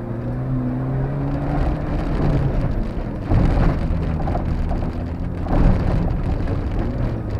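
Mitsubishi Pajero rally car heard from inside the cabin at speed, its engine note rising and falling as the driver works the throttle, over a constant rush of tyre and road noise. Two loud thumps, like the car hitting bumps, come about three and a half and five and a half seconds in.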